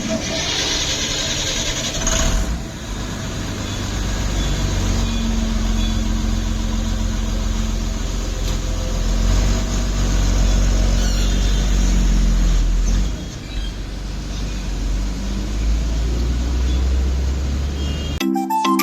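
A hiss lasting about two seconds, then a steady low mechanical drone, like a motor or engine running. Music comes in right at the end.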